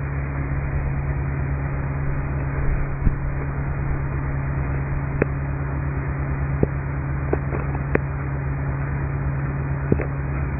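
Hitachi Zaxis 330 excavator's diesel engine running steadily with a low hum, with a few short sharp knocks or clanks scattered through it.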